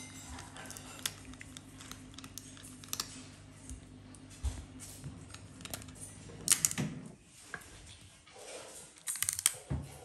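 Raccoon chewing a nut: a run of small crisp crunching clicks, with a couple of louder rustling bursts about six and a half seconds in and again near the end.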